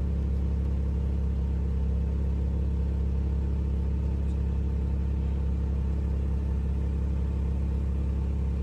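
Steady low mechanical hum with a rumble, unchanging in pitch and level.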